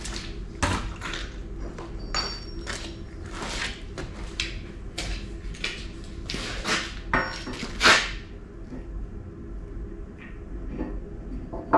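Irregular steel-on-steel clanks and scrapes with a few brief metallic pings, as an excavator bucket tooth is worked onto its adapter with its retaining puck; the loudest clank comes near the end, then only a few light clicks.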